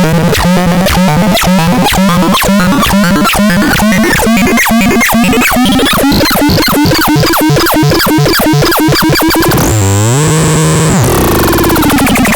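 UFOFON synthesizer playing a fast train of repeating electronic pulses over a low bass tone that steps in pitch, the pulses growing quicker and brighter. About ten seconds in it drops into a falling swoop and a held low tone, then breaks into rapid, dense pulsing near the end.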